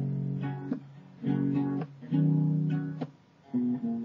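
Acoustic guitar strummed alone, chords ringing in several short groups with brief pauses between them.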